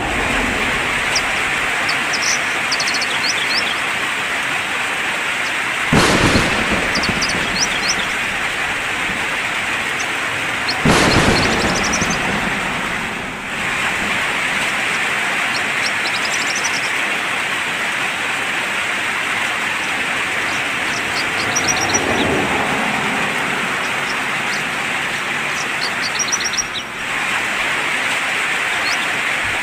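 Steady rain falling on a tiled roof, with birds chirping in short bursts throughout. Two sudden loud cracks come about six and eleven seconds in.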